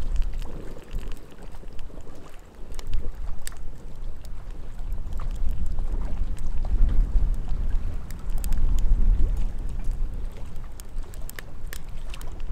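Split firewood burning in an ammo-can wood stove, crackling with scattered sharp pops, under a heavy, gusting low rumble of wind buffeting the microphone.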